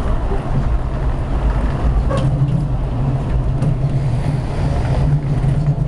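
Prague tram running along street track, heard from inside the front cab: a steady low rumble with a few faint clicks.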